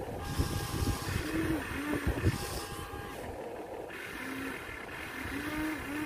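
Huina 1593 RC excavator's small electric gear motors whirring as its boom and bucket move, starting and stopping several times, with wind rumbling on the microphone.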